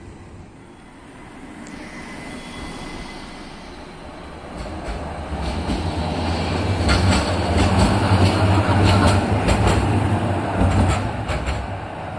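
Stadler Citylink tram-train passing close by: its low rumble builds over several seconds, peaks, then eases, with a quick run of sharp clicks from its wheels on the rails as it goes past.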